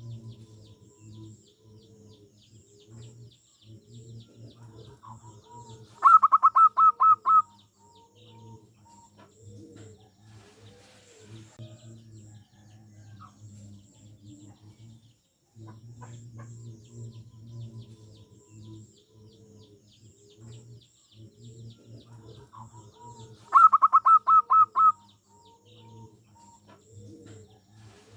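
Zebra dove (perkutut) singing: two loud bursts of rapid staccato cooing notes, about six notes each, one about six seconds in and one near the end. Softer, lower cooing and faint high twittering of small birds run underneath.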